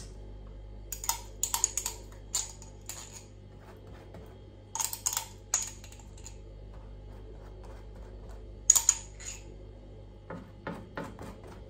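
Small metal-bladed spreading knife clicking and clinking against a glass jar while chili paste is scooped out, in three short clusters of quick taps with a brief high ring.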